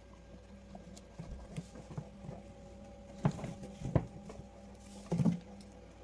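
Guinea pig scurrying about its cage: light patter of small feet with soft knocks, and three louder bumps about three, four and five seconds in.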